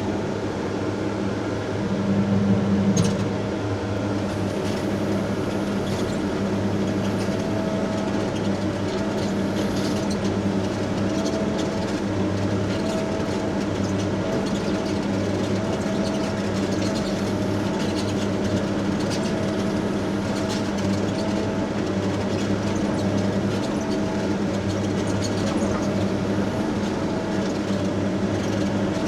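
Heavy excavation machine's diesel engine working steadily under load while digging dirt, with a brief swell in engine note about two to three seconds in and faint knocks and scrapes of the work.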